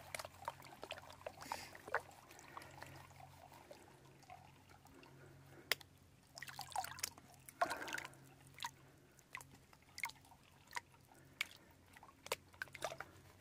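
Faint water sloshing and dripping as a blue plastic Minelab gold pan is swirled and dipped in shallow creek water, with small splashes and clicks here and there, a few a little louder past the middle.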